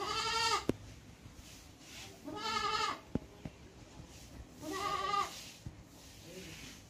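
Goat bleating three times, about two seconds apart, each bleat about half a second long with a quavering pitch.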